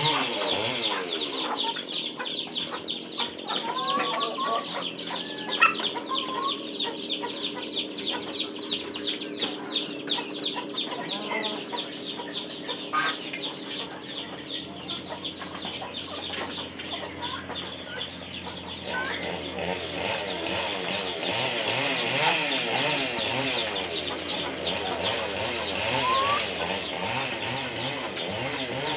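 A flock of chickens clucking and calling continuously as they crowd a bowl of rice and feed, with a dense chatter of rapid calls and a few short rising calls. One sharp knock stands out about six seconds in.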